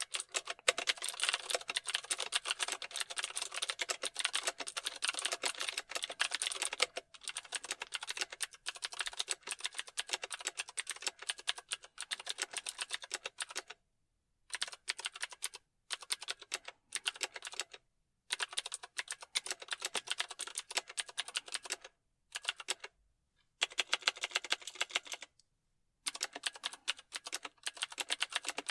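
Computer keyboard typing: rapid key clicks in quick runs. A few brief pauses break the typing in the second half.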